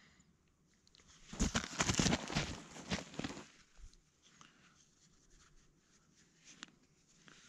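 A knife blade scraping in a quick run of rasping strokes for about two seconds, as part of fire-starting with a fire steel and tinder. A few faint clicks and handling noises follow.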